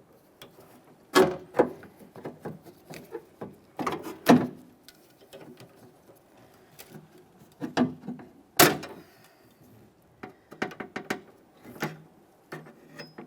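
Irregular plastic-and-metal clicks, knocks and rattles as the rear inside door handle assembly of a Chevrolet Silverado is worked loose in the door, with three louder knocks about a second, four seconds and eight and a half seconds in and a run of quick light ticks near the end.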